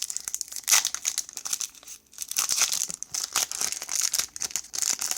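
Plastic wrapper of a trading card pack crinkling as it is rubbed and torn at, in irregular bursts with a short lull about two seconds in.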